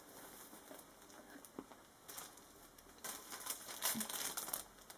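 Plastic wrapping around a book crinkling and rustling in short bursts as it is being opened by hand, faint at first and busier from about three seconds in.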